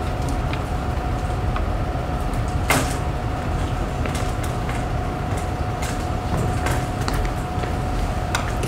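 Classroom room noise: a steady low hum with a faint steady whine, broken by scattered light clicks and taps, the sharpest a little under three seconds in.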